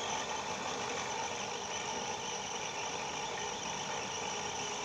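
Small electric food chopper's motor running steadily as it grinds chili spice paste, cutting off sharply at the very end.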